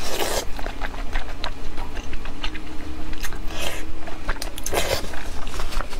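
Close-up wet chewing and slurping of braised pork intestines in thick sweet sauce: a steady run of sticky mouth clicks, with louder slurps at the start, about three and a half seconds in, and near five seconds.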